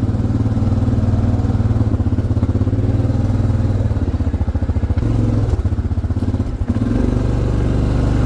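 ATV engine running at low speed on a rough, bumpy trail, with a steady pulsing rumble that dips briefly about six and a half seconds in and then picks up again.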